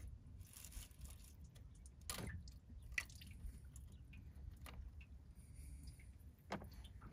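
Faint handling noises of hands working in an engine bay: a few soft clicks and taps as tools and parts are moved about, over a low steady background hum.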